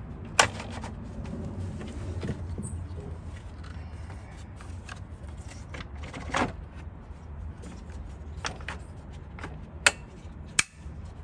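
Sharp plastic clicks and knocks of a radiator cooling-fan shroud being fitted and clipped into place: one sharp click about half a second in, a knock around six seconds, and two loud snaps near the end, over a steady low background rumble.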